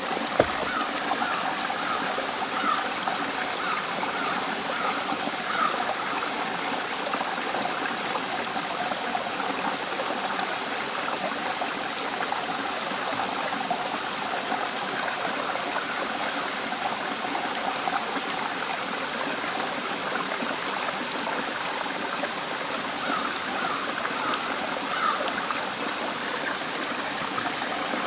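Small waterfall running over rock ledges into a pool: a steady rush of falling water.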